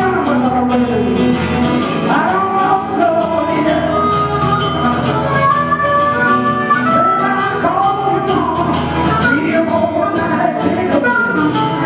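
Live acoustic music: a steel-string acoustic guitar strummed under a harmonica playing the melody, with sliding, bent notes.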